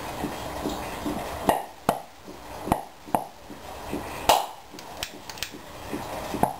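Hydrogen-oxygen (HHO) gas from a water electrolysis cell, bubbling out of a tube into a beaker of water, catching fire in a string of sharp pops as a flame is held at the bubbles. About nine irregular pops, the loudest about four seconds in.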